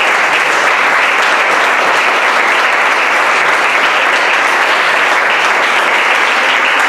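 A roomful of people applauding: steady, loud hand clapping.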